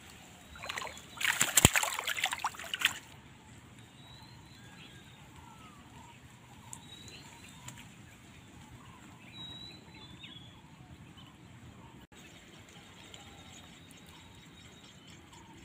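Water splashing for about two seconds, starting about a second in, as a freshly caught fish is put into a mesh net bag in shallow lake water. After that a quiet outdoor background with faint short bird chirps.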